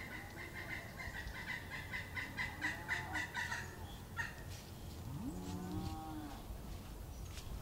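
Cattle mooing: a drawn-out low call that rises in pitch and holds for about a second, about five seconds in, with shorter calls before it. A steady, high, fast-pulsing chirr runs through the first half.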